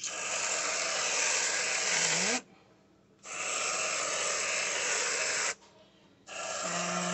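Aerosol can of whipped cream spraying in three long hissing bursts of about two seconds each, with short pauses between.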